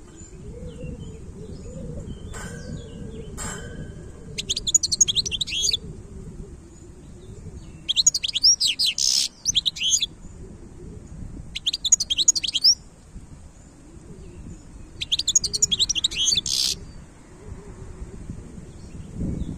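European goldfinch singing: four bursts of rapid, high twittering song, each a second or two long, with a couple of short thin calls before them, over a steady low background rumble.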